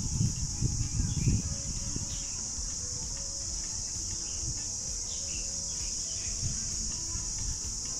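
Steady high-pitched drone of insects, with a few low thumps in the first second or so and faint scattered chirps.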